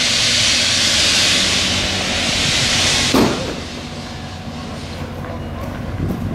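Steam locomotive giving off a loud, steady hiss of steam that cuts off about three seconds in with a single clank, leaving a quieter low rumble from the train.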